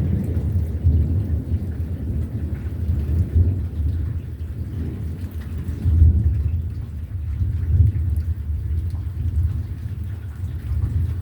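Thunder rumbling low and unevenly during a thunderstorm, swelling about six seconds in and again near eight seconds.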